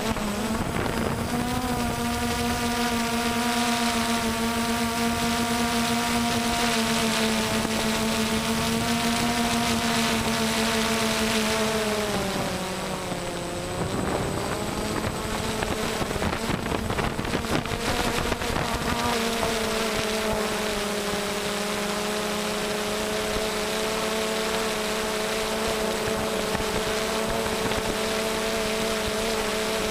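Quadcopter motors and propellers buzzing steadily, heard close up from the camera mounted on the drone. The pitch sags for a moment about halfway through, then settles back to a steady buzz.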